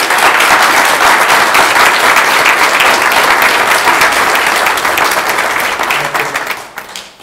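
A small crowd applauding: dense, steady clapping that fades out near the end.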